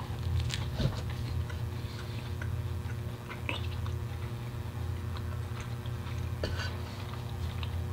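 A man chewing a bite of a steak sub sandwich, with soft, irregular clicks of the chewing over a steady low hum.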